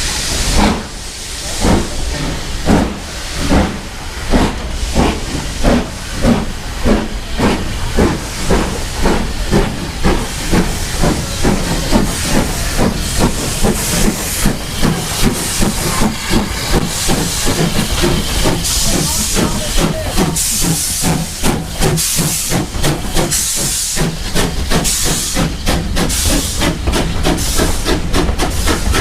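Steam locomotive pulling away: its exhaust beats start about one a second and quicken steadily as it gathers speed, over a continuous steam hiss that grows stronger in the second half.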